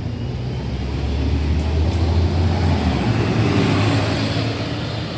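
City bus driving past close by, its engine running with a low drone that grows loudest about two seconds in, then moves to a slightly higher, rising note about three seconds in as it accelerates away.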